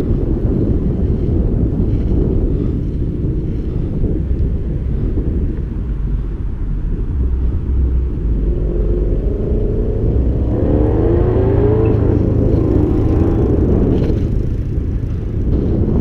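Steady wind rumble on an action camera's microphone while riding, with a car engine's note rising in pitch as it passes close by from about halfway in.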